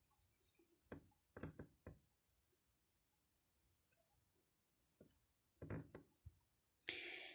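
Near silence with a few faint clicks of glass seed beads as a threaded needle is worked through a beaded crochet-rope bracelet. A brief soft rustle comes near the end.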